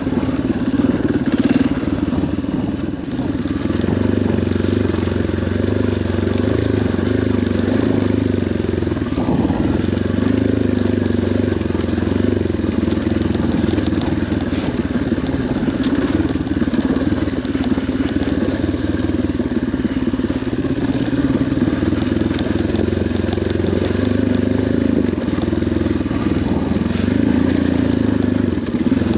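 KTM 500 XCF-W dirt bike's single-cylinder four-stroke engine running under way, the revs rising and falling continuously as the throttle is worked.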